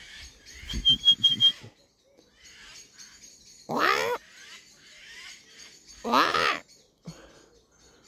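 Two loud, harsh, rasping bird calls about two seconds apart, which the listener takes for jackdaw chicks, though he is not sure. About a second in there are a few knocks and a brief run of high chirps.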